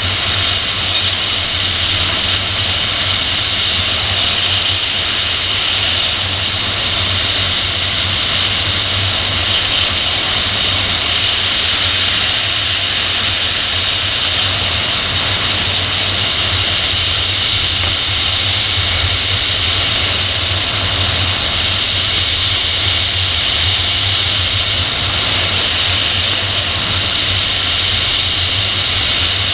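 Steady rush of airflow past a camera mounted on the tail of a PIK-20 sailplane in gliding flight. A constant high whistle sits over a low rumble, unchanging throughout.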